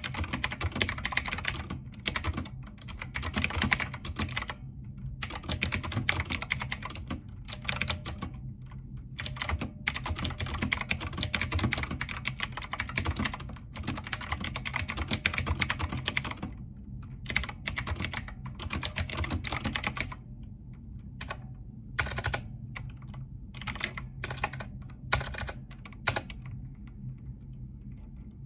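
Typing on a retro-style mechanical keyboard: rapid runs of key clacks, thinning in the second half to scattered keystrokes with short pauses between them.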